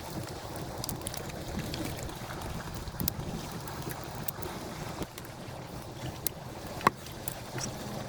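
Wind buffeting the microphone as a steady low rumble, with scattered small clicks and one sharper click about seven seconds in.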